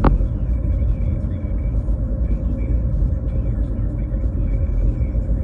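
Road noise inside a moving car's cabin: a steady low rumble of tyres and engine, with a faint steady hum above it. A brief sharp click sounds right at the start.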